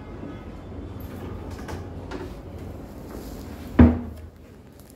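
A door thudding shut once, about four seconds in, after low rumbling handling noise from the phone being carried.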